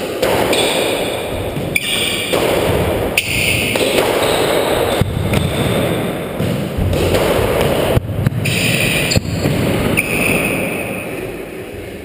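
Squash rally: the rubber ball struck by rackets and smacking off the court walls and floor, sharp hits coming at irregular intervals.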